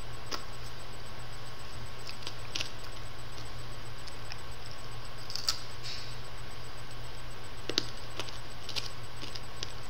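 Small wet clicks and smacks of a mouth sucking and working on a hard-candy lollipop, a handful scattered through, over a steady low hum and hiss.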